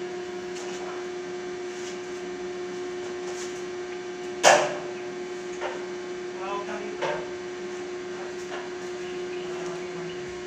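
Welding machine humming steadily. A loud, sharp clank comes about four and a half seconds in, followed by a few lighter knocks.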